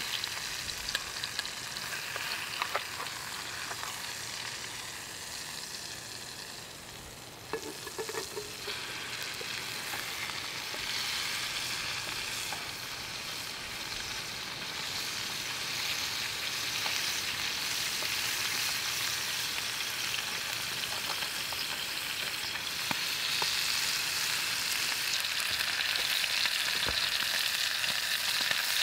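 Chunks of elk meat sizzling in a steel pot over a small wood-burning box stove, with metal tongs clicking and scraping as they are stirred. A metal clatter comes about eight seconds in, after which the sizzling grows steadily louder.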